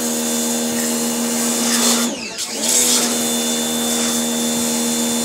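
Pressure washer running: a steady motor hum with the hiss of its water jet spraying the car's door. About two seconds in, the motor briefly slows and winds back up.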